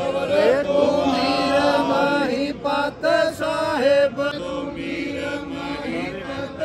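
Sikh devotional kirtan: a voice singing a hymn in long, gliding, held phrases over a steady drone.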